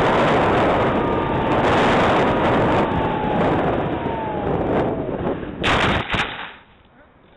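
Onboard audio from a small electric FPV plane: heavy wind rush with the motor and propeller whine falling steadily in pitch as it descends low over the field. About five and a half seconds in come a few sharp thumps as it hits the ground and crashes into the grass, after which the wind and motor sound drop away.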